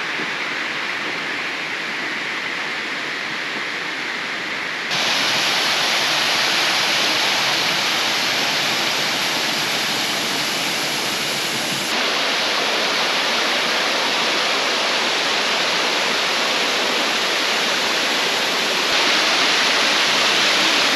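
Steady rush of a tropical waterfall, getting louder in three sudden steps.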